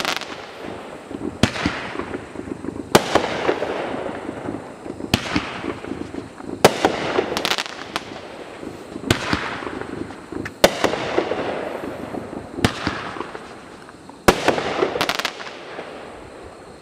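Six-shot consumer firework cake firing: a series of sharp bangs every second or two, each followed by a fading hiss and crackle from the bursting comets, stars and strobe.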